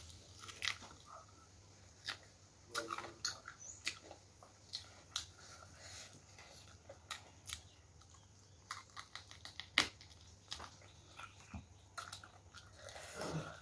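Close-up eating sounds of a person chewing a mouthful of rice and chicken with potato eaten by hand: irregular wet mouth clicks and smacks.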